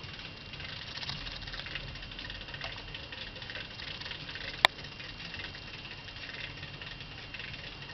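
Light plastic crackling and rattling from Lego Technic parts being handled at the top of the crane, with one sharp click a little past halfway through.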